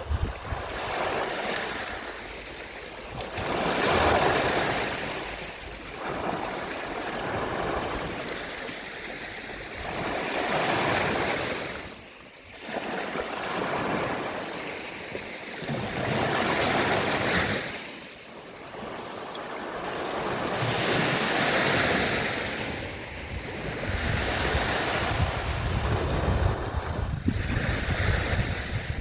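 Gentle sea waves washing onto a shore. Each wave swells and draws back, about every five to six seconds.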